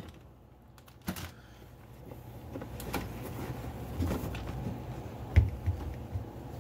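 Rummaging in a refrigerator crisper drawer: scattered light knocks and rustles of plastic bags and bins, with a sharper knock about five seconds in.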